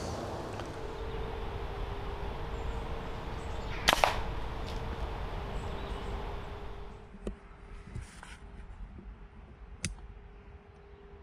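A .22 Brocock Pathfinder air rifle firing once, a sharp crack about four seconds in, followed a few seconds later by several fainter clicks.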